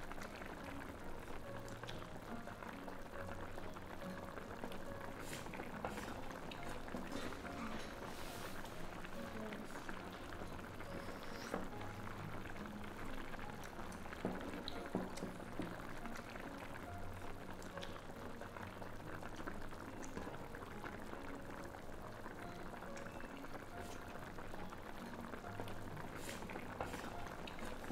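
Hot pot broth boiling steadily, a dense crackle of small bubbling pops.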